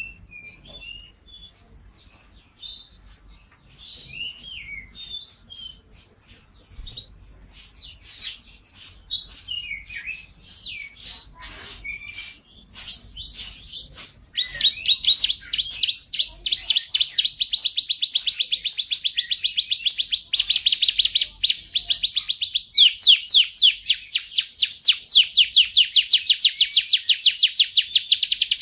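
Domestic canary singing: a string of varied chirps and short whistles, then, about halfway in, loud rapid trills of evenly repeated notes, one trill run after another.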